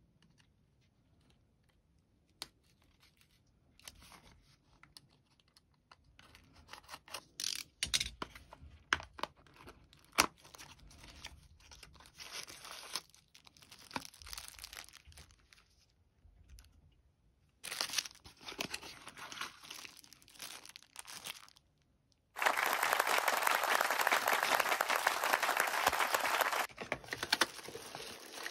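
Keyboard packaging being handled and opened: scattered rustles and clicks, then crinkling and tearing, with a loud, continuous ripping rustle lasting about four seconds near the end.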